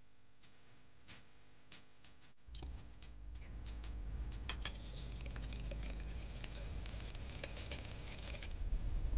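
Wire whisk beating egg yolks and sugar in a glass bowl: rapid clicking and scraping of the metal tines against the glass. It starts about two and a half seconds in, after a few faint clicks, and grows louder toward the end.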